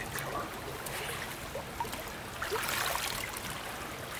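Shallow creek water running and trickling over stones, with a louder splash of water about two and a half seconds in as a dead salmon is handled in the shallows.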